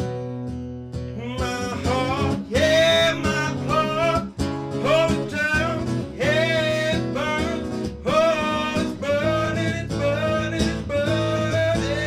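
A man singing a slow song over an acoustic guitar. The guitar plays alone at first, and the voice comes in about a second in, carrying on in long, wavering phrases.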